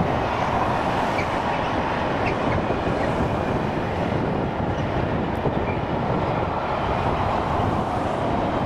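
A train rolling past on the rails, its wheels making a steady, unbroken rumble.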